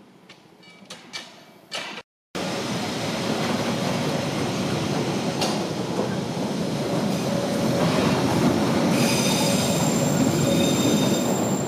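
Faint metallic clinks, then from about two seconds in a Rhaetian Railway rail-carrying flat-wagon train rolling slowly past, its wheels rumbling steadily on the track. From about nine seconds in, high-pitched wheel squeal rises over the rumble.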